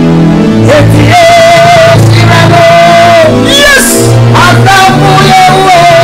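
A man singing gospel worship at full voice, with long held notes that bend and break, over an instrumental backing of steady chords and bass.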